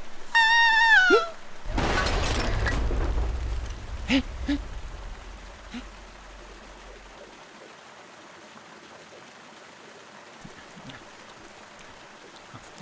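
Baby giant panda sneezing: one high, squeaky cry lasting about a second that drops in pitch at the end. It is followed by about two seconds of loud, noisy commotion.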